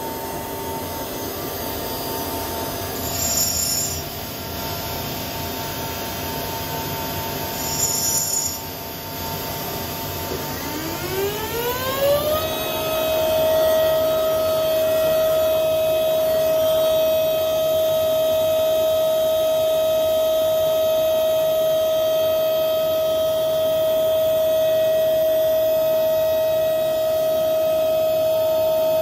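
Studer S40 universal cylindrical grinder running with a steady hum and two short hisses. About ten seconds in, a spindle spins up with a rising whine over about two seconds, then holds a steady high whine at full speed.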